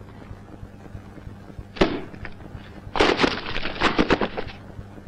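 A man laughing manically in sharp, breathy bursts: one sudden burst about two seconds in, then a rapid run of laughs a second later. A steady low electrical hum runs underneath.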